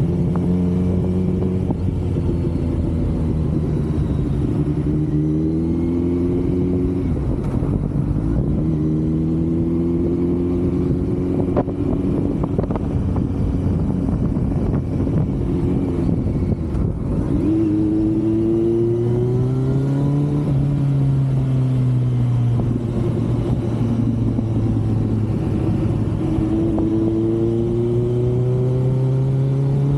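Kawasaki Z900's inline-four engine and exhaust under way on the road. The engine note climbs and then drops sharply several times as the bike accelerates and changes gear, then holds lower and steadier in the second half, with wind buffeting the microphone.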